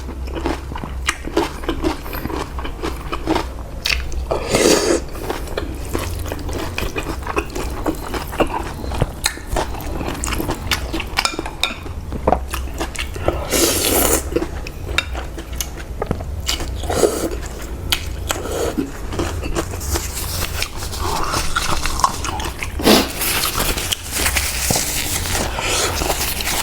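Close-miked eating of pork noodle soup: chewing and biting, with quick clicks, and longer hissy stretches of slurping noodles and broth. A steady low hum runs underneath.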